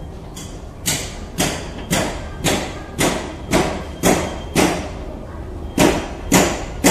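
Footsteps on a hard floor at a steady walking pace, about two a second, with a short break before they carry on.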